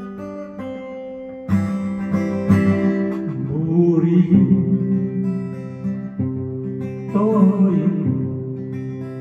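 Steel-string acoustic guitar strummed and picked, with a louder strummed entry about a second and a half in. A man's voice sings two short phrases over it, near the middle and again near the end.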